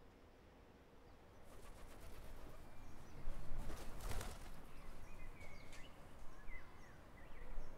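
Outdoor garden ambience: a low hush with a few short, high bird chirps, coming in after about a second of near quiet.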